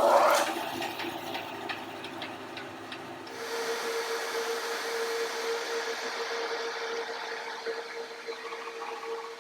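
Grizzly bandsaw motor starting up with a surge and running, then from about three seconds in the blade cuts into a cherry board: a steady hiss over a held hum.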